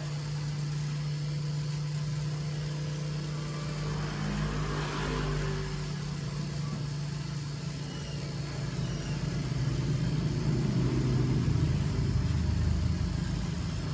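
A motor running steadily with a low hum. A louder low rumble swells about ten seconds in.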